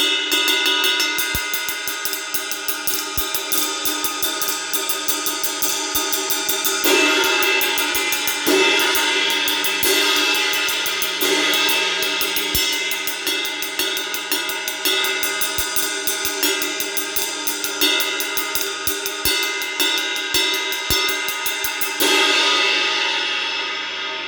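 Paiste 3000-series cymbals, 15-inch Heavy hi-hats and a 22-inch Power Ride, played in a fast, steady drum-kit groove with a kick drum under it and louder cymbal accents about every second and a half. Near the end a last cymbal hit rings out and starts to fade.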